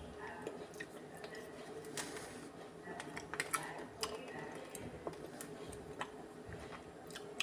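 Quiet eating sounds: a metal spoon scraping and clicking against a plastic ice cream tub, with small wet lip and mouth smacks as ice cream is eaten off the spoon. The clicks come scattered, with a quick cluster a little over three seconds in.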